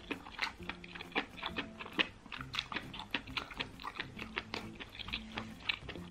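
Close-miked chewing with the mouth closed: irregular wet mouth clicks and smacks, several a second.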